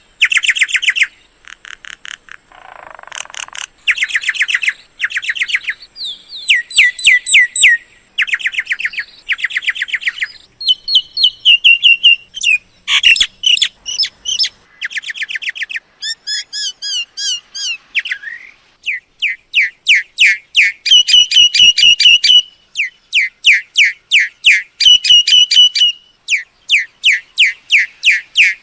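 Myna calls: fast trains of short, sharp, whistled and clicking notes, in bursts of about one to two seconds separated by brief gaps.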